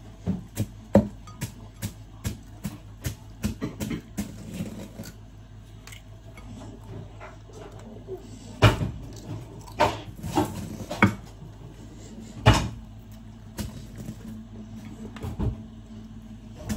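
Wooden spoon knocking and scraping around a mixing bowl as a child stirs a chocolate mixture: irregular taps, with a few louder knocks about halfway through and again later.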